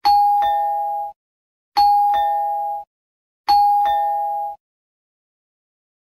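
Keikyu platform screen door's door-opening chime, the 'pilot type' unit: an electronic two-tone 'pin-pon' ding-dong, a higher note followed by a lower one, both fading out together. It plays three times, about 1.7 s apart. It is recorded straight from the chime's electronic sound unit, so there is no station noise.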